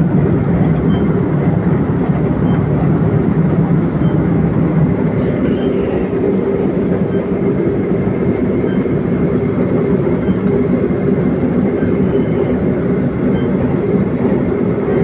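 Steady engine and road noise inside the cab of a mobile crane truck travelling along a paved road: an even, loud rumble that holds without change.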